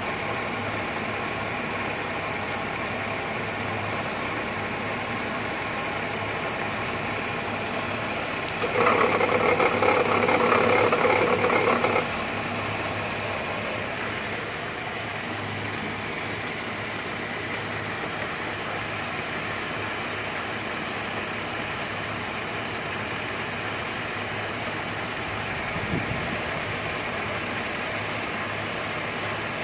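2008 GMC Acadia SLT's 3.6-litre V6 idling with a rattle, which the owner takes for a failing pulley bearing. About nine seconds in a louder, harsher noise cuts in and stops abruptly some three seconds later.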